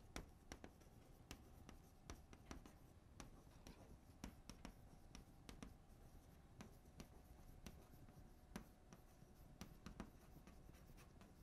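Near silence with faint, irregular scratching and tapping strokes of writing.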